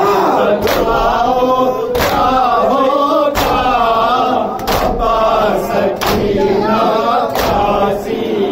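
Men chanting a nauha, a Shia lament, together, with chest-beating matam slaps landing in unison about every 1.3 seconds.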